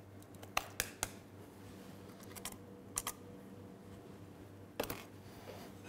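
Light metallic taps and clicks from a small stainless steel shaker as powdered sugar is dusted over a dessert: a few scattered sharp clicks, several close together near the start and single ones later.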